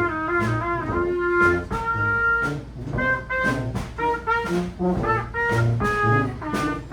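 Brass band playing a jazzy tune: trumpets and trombones over a steady beat of drum hits, about two a second.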